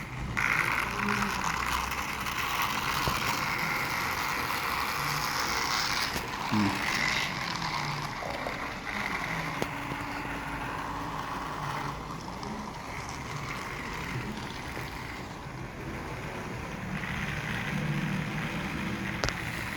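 Small battery-powered toy train locomotive's electric motor running with a steady whir and the clatter of its running gear. Its drive wheels slip as it strains to pull the coupled wagons.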